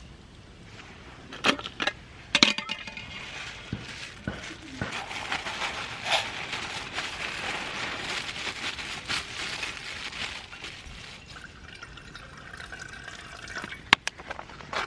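A few clinks of cookware, then water poured steadily into a pot for about eight seconds, followed by a quieter trickle and two more clinks near the end.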